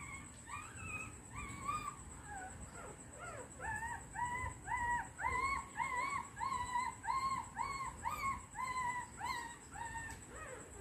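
A newborn puppy crying: a long run of short, high-pitched whimpering cries, about two a second, growing louder and more regular from about four seconds in.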